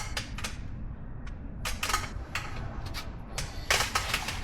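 Sharp metallic clinks and taps of hand tools against the truck's front brake and hub parts, about a dozen irregular knocks, some in quick pairs.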